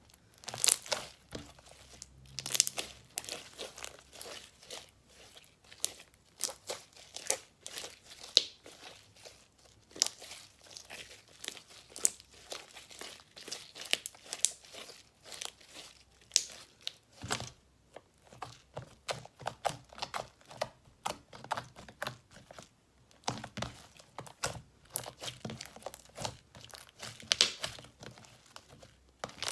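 Hands kneading, stretching and squishing sticky clear slime: a continuous run of irregular wet clicks, pops and crackles.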